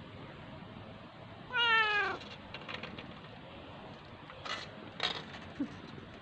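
Domestic cat meowing once, a short call about a second and a half in that falls slightly in pitch. Two brief soft noises follow a few seconds later.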